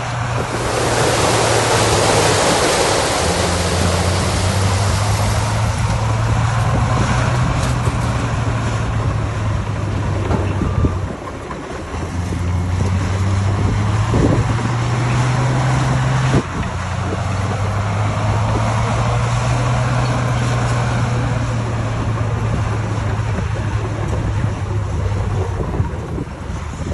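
Heavy earthmoving machine's diesel engine running under load, its note shifting a few times, with a short dip about eleven seconds in. Wind buffets the microphone, most strongly in the first few seconds.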